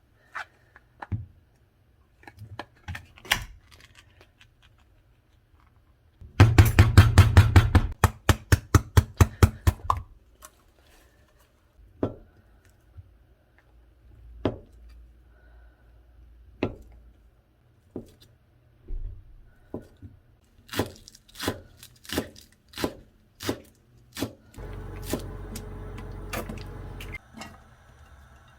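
Kitchen prep on a counter: a quick run of knife strikes on a cutting board, then scattered knocks and clatter of utensils and dishes. A steady low hum runs for a couple of seconds near the end.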